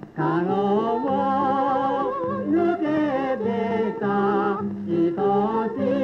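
A vocalist singing a Japanese popular song (ryūkō kouta) with a wide vibrato, in phrases that break a few times, over orchestral accompaniment on a 1930 recording.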